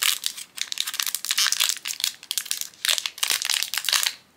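Shiny black foil blind-bag pouch crinkling and crumpling in the hands as it is worked open to get the pin out: a quick, irregular run of crackly rustles that stops shortly before the end.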